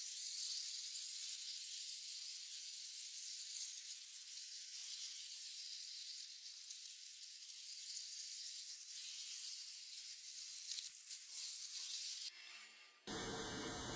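Steady high hiss, with nothing deep beneath it. Near the end it breaks off briefly and gives way to a fuller noise carrying a thin steady whistle.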